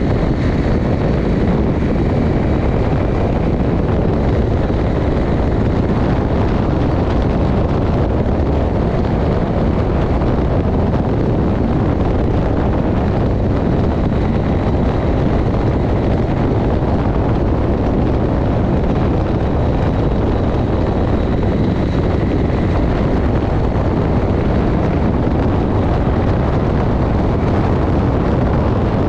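Steady wind rush on the microphone, with the running noise of a KTM motorcycle cruising at road speed.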